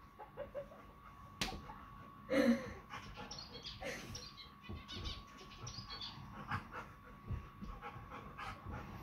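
Two dogs play-fighting, a big golden-coated dog and a small black puppy mouthing at each other, with scattered short vocal sounds and scuffling; the loudest is a brief bark-like yelp about two and a half seconds in, with another near four seconds.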